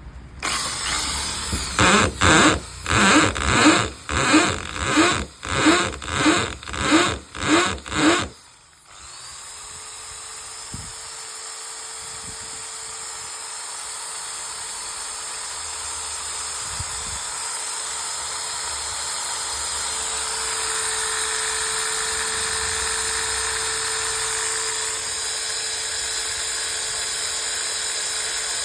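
Makita 13 mm electric drill switched on and off in quick pulses, about ten times, each pulse revving up and dying away. It then starts again about nine seconds in and runs steadily with a constant whine.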